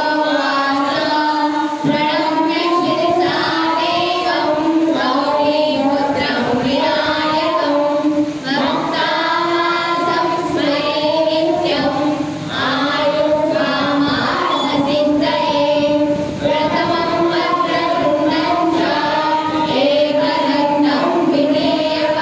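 A group of children and women singing a devotional song together in unison, without instruments.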